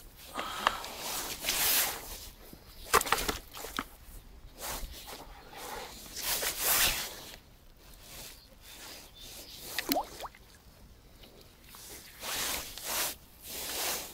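Rustling and scuffing as a large bream is handled out of a bucket at the water's edge, in irregular bursts, with a few sharp knocks.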